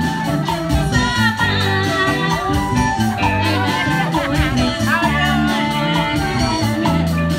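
Live Cambodian band playing: electric guitars, bass and keyboard over a steady beat, with a vocalist singing a melody on top.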